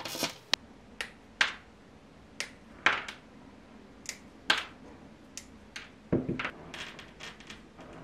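Small pieces of green stained glass being cut and snapped off with a hand tool and pliers: about a dozen sharp, irregular clicks and snaps, with a quick cluster of them a little after six seconds in.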